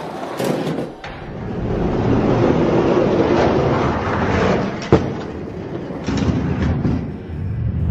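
Die-cast toy monster trucks rolling fast down a plastic Hot Wheels track, a steady rumbling noise, with one sharp knock about five seconds in.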